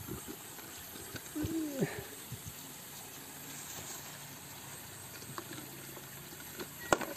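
Light splashing and trickling of water as a hand moves a fish about in a plastic tub, with scattered small knocks and a sharp click near the end.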